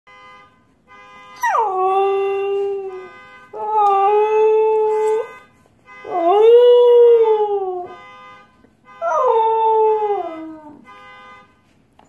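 Husky howling four times, long drawn-out howls, the first and last sliding down in pitch, the third rising and then falling. Beneath them runs the faint steady tone of the car alarm it is howling at.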